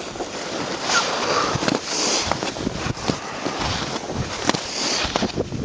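Skis sliding and scraping over packed snow on a descent, with wind rushing over the microphone and irregular knocks and scrapes throughout.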